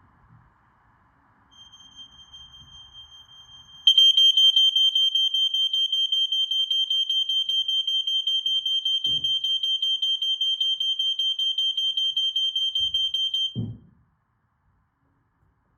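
Smoke alarms going off during a test: a faint high-pitched alarm tone starts, then about four seconds in a smoke alarm's horn sounds loud, with a fast flutter, for about ten seconds before cutting off suddenly. A couple of knocks, one just as it stops.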